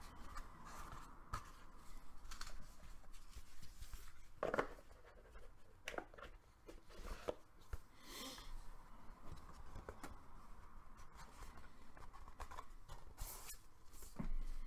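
Cardboard box and paper inserts being handled: a scattering of soft scrapes, taps and rustles, the loudest about four and a half seconds in.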